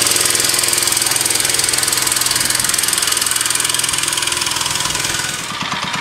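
Small 3 hp four-stroke single-cylinder engine on a motorized bicycle running at full throttle, pulling the bike away from a standing start. The engine note eases a little about five and a half seconds in.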